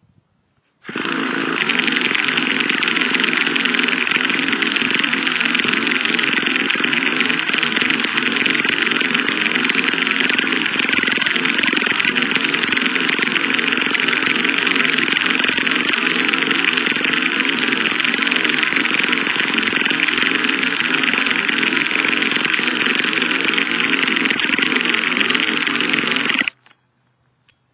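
Electric starter of a Traxxas T-Maxx 2.5 nitro truck spinning the engine in one long, steady run that starts about a second in and cuts off abruptly near the end, with no rise in pitch: the nitro engine is not catching.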